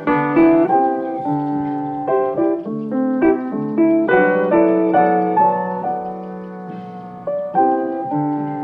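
Background piano music: a steady run of notes and chords, several to the second.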